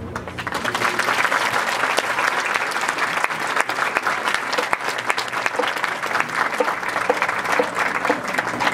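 Audience applauding, the clapping swelling up just after the marching band's final chord stops.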